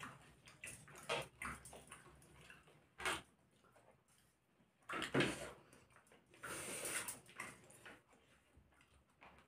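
Close-up eating sounds of people eating rice and fish curry by hand: short wet smacks and squelches of chewing and of fingers mixing rice with curry. The louder ones come about three seconds in, around five seconds, and in a longer spell near seven seconds.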